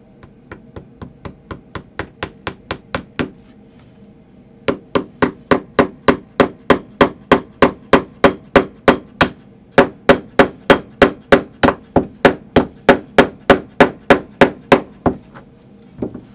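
Tack hammer driving brads through fabric into an upholstered chair's arm panel. It starts with a run of light taps that grow harder, pauses briefly, then goes on with a long steady run of harder strikes, about four a second, with one short break midway and a single strike near the end.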